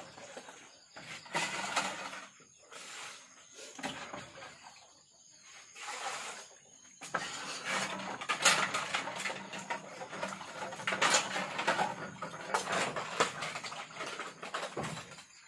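Dishes being washed by hand in a basin: water sloshing and splashing, with pots and plates knocking and clinking. It is busiest in the second half.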